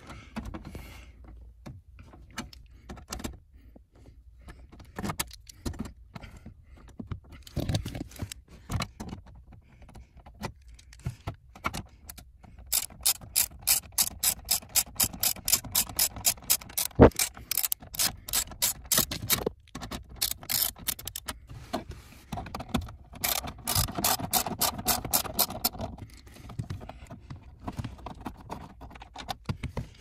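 Socket ratchet clicking as bolts holding an under-dash kick panel are backed out: scattered knocks at first, then two long runs of quick, even clicks, about three or four a second, in the second half, with one sharp knock between them.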